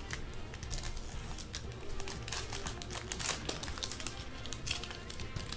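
Foil trading-card pack wrapper crinkling and crackling as it is handled and torn open, over background music.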